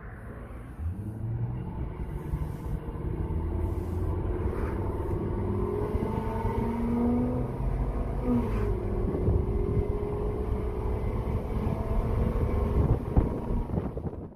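Ford F-350's 6.8-litre V10 with its catalytic converters removed, heard from inside the cab as the truck accelerates: the engine note rises, drops at an upshift about eight seconds in, then climbs again.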